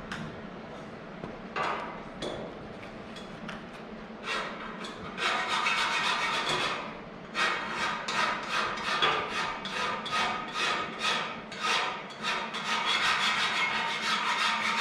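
Burr being filed off the freshly cut end of a 50×50 mm aluminium profile by hand. Fairly quiet at first, then from about four seconds in a run of quick back-and-forth scraping strokes, about two a second, running closer together near the end.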